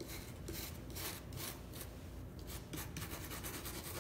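Small wire brush scrubbing the nose and lip line of a whitetail deer mount in quick repeated strokes, with a short pause a little past halfway: the bristles are working dried glue out of the lip line.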